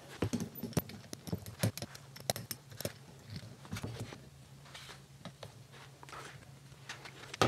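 Scattered light taps, clicks and knocks of plywood parts and a glue bottle being handled during a glue-up, over a low steady hum.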